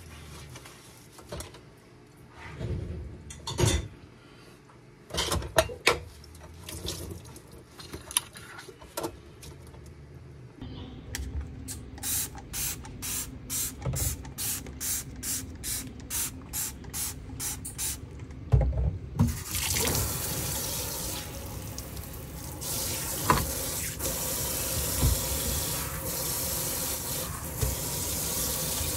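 Dishwashing at a stainless steel kitchen sink. Scattered clinks and knocks of dishes come first, then rhythmic scrubbing strokes about twice a second. From about two-thirds of the way through, the tap runs in a steady spray into the sink.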